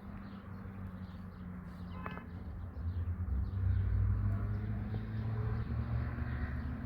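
Tractor engine running steadily with a low hum that grows louder about three seconds in.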